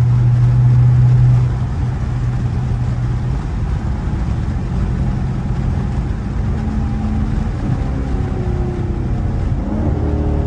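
Dodge Charger Scat Pack's 392 HEMI V8 heard from inside the cabin at highway cruise, a steady low drone that is loudest for the first second and a half and then eases. Near the end the engine note begins to climb as it picks up speed.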